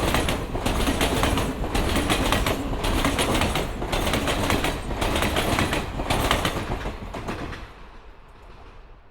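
Train cars passing close by: a loud rushing rumble with the wheels clattering over rail joints in a steady rhythm of about one clatter a second. About seven seconds in the sound falls away and fades as the train moves off.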